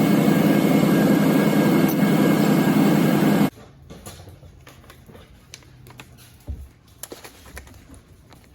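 2000 Ford F-250 truck engine running steadily, then cutting off abruptly about three and a half seconds in. Faint scattered clicks of handling follow.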